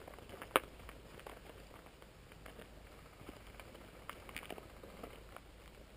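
Footsteps crunching slowly over gravel as several people creep forward, with scattered small clicks and one sharp click about half a second in.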